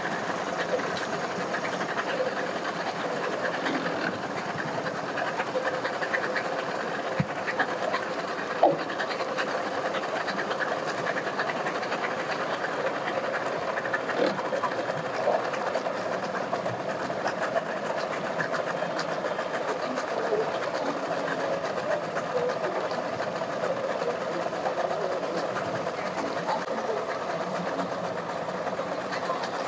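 Outboard boat motors idling, running steadily, with one brief sharp knock about nine seconds in.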